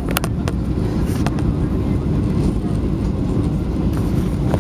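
Steady low cabin roar of a Boeing 737-700 on approach, the engines and rushing air heard from inside the passenger cabin. A few short clicks come near the start and again about a second in.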